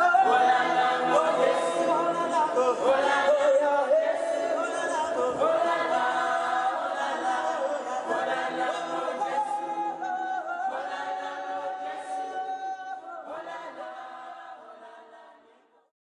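Choir singing in harmony, several voices holding and sliding between notes, fading out over the last few seconds.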